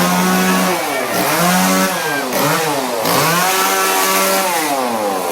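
Chainsaw engine revved again and again, its pitch rising and falling several times without stopping.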